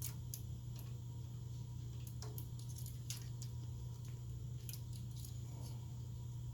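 Scattered small clicks and snips of hands working the PSU power adapter's wires and connector pins, irregular and a few a second at most, over a steady low hum.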